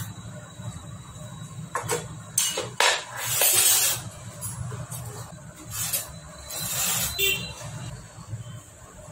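Metal engine parts of a stripped-down Honda Activa scooter engine being handled and scraped by hand: one sharp click about three seconds in and several short hissing scrapes, over a steady low hum.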